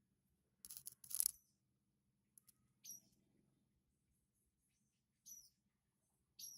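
Three short, very high bird chirps a couple of seconds apart, each with a quick drop in pitch. A louder, harsh scratchy burst comes about a second in.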